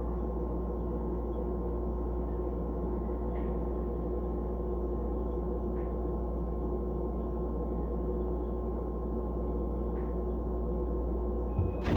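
Refrigerator running, heard from inside the closed fridge: a steady hum with several held tones from the compressor and fan. Near the end a low thump as the door is opened.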